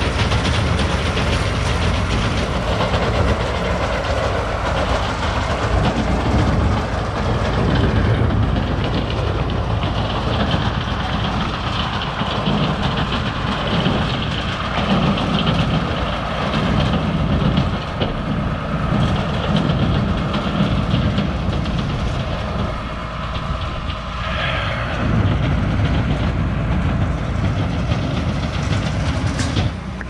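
Tractor engine running under load while it pulls and drives a Jay-Lor vertical TMR feed mixer wagon, the mixer rattling and clattering steadily as it unloads feed along the bunk.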